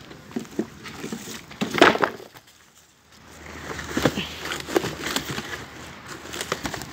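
Wooden planks being shifted and laid across a drain opening: irregular knocks and scrapes of wood, loudest about two seconds in.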